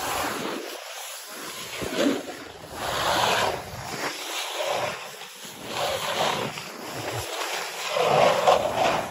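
Skiing or snowboarding edges scraping and skidding over firm, chopped-up snow, one swell of hiss with each turn, about once a second, with wind buffeting the phone's microphone.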